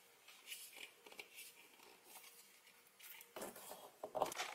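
Faint rustling and scraping as hands handle an EVA foam disc with a plastic straw pushed through it, with a few louder handling sounds near the end as it is set down on the table.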